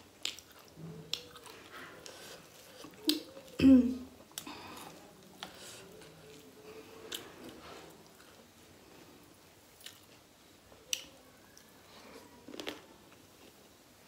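Close-up eating sounds of a person chewing rice and grilled pork sekuwa: wet chewing, lip smacks and sharp mouth clicks scattered through. There is a louder short thump about four seconds in.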